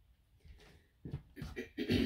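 Footsteps on a wooden floor with soft knocks and rustling, starting about a second in and getting louder toward the end.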